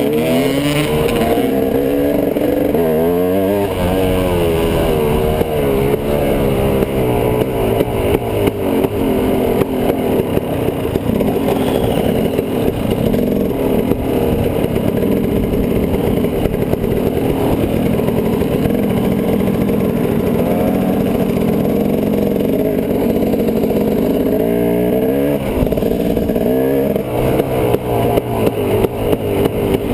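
Dirt bike engine running under way on a trail ride, its pitch rising and falling with throttle and gear changes over the first few seconds and again about 25 seconds in.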